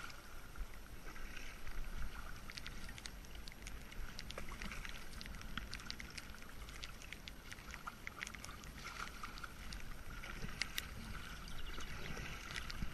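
Kayak being paddled along a river: a steady hiss of moving water with many small, sharp splash and drip ticks from the paddle blades and water on the deck.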